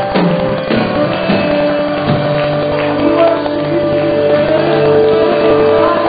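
Live gospel worship music from a church band: held keyboard chords over a steady drum beat, with voices singing and calling out.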